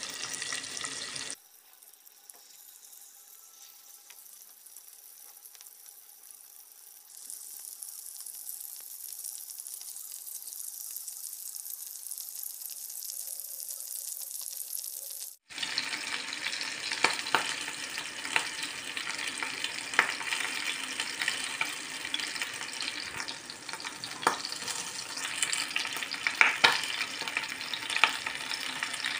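Chicken pieces frying in butter and oil in a pan, sizzling. It is faint for the first few seconds and hisses from about seven seconds. After a cut near the middle it grows louder, with frequent pops and crackles.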